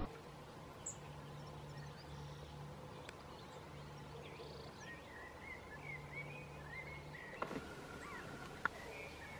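Faint open-air ambience: small birds chirping briefly in the middle, over a low hum that comes and goes, with a few light clicks.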